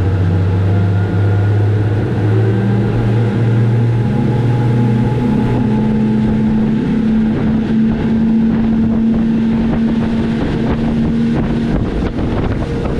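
Outboard engine of a Sea Hunt Gamefish 30 center-console boat throttling up as the boat gets under way. Its note rises over the first few seconds, then holds steady at speed, with wind and rushing water behind it.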